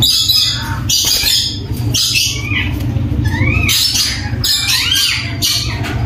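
Ringneck parakeets giving a rapid series of harsh, screeching squawks, with a couple of rising-and-falling calls midway, over a steady low hum.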